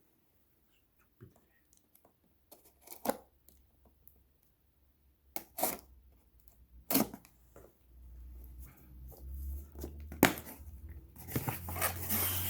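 A cardboard package being opened by hand: tape tearing and cardboard rustling, with scattered sharp knocks. The handling gets louder in the last few seconds, with a low rumble under it.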